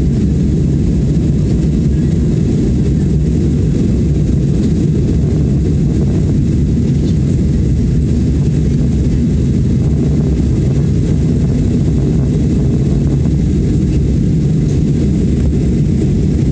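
Cabin noise inside an Airbus A320 in the climb after take-off: the engines and rushing airflow make a steady, low rumble with no change.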